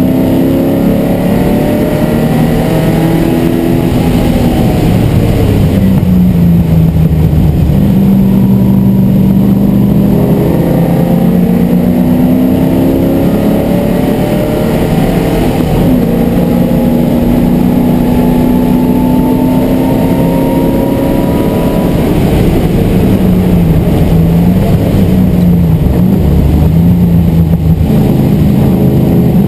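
MGB GT V8's Rover V8 engine racing under load, heard from inside the cabin, its revs climbing and dropping through gear changes and corners. There is one long climb from about halfway, then a drop and quick up-and-down swings of revs near the end.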